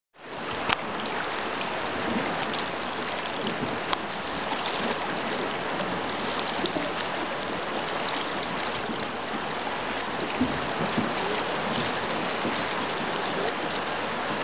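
Fast river current rushing steadily around anglers wading in it, with a couple of brief sharp clicks in the first four seconds.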